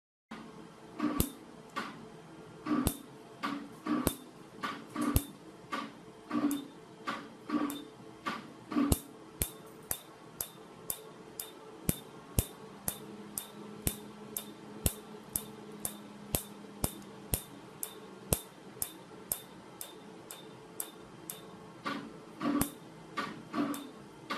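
PicoWay picosecond tattoo-removal laser firing pulse after pulse onto tattooed skin, with a sharp snap at each pulse, about two a second.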